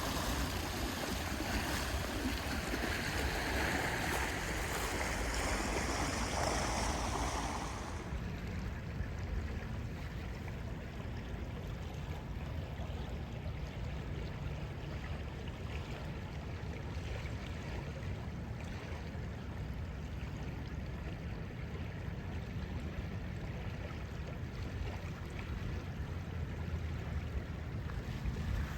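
Fast-flowing river water rushing steadily, with a low rumble of wind on the microphone. The higher hiss of the water drops away about eight seconds in, leaving mostly the low rumble.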